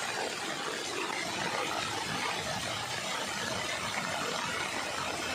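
A vehicle moving through floodwater: a steady engine hum mixed with a continuous wash of water.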